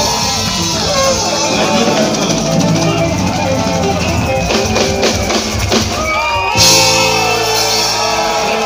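Live band music with drums, guitar and a male singer on a microphone, played at a steady loud level. There is a run of sharp drum strokes, then a sudden bright crash about six and a half seconds in.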